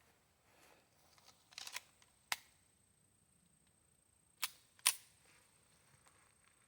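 A few sharp clicks and knocks: a short cluster about one and a half seconds in, then single sharp ones near two and a half, four and a half and five seconds, the last the loudest.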